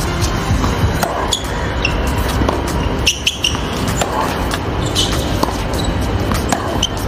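Tennis rally on a hard court: sharp racket strikes on the ball and ball bounces every second or so, with short sneaker squeaks, over a steady low rumble.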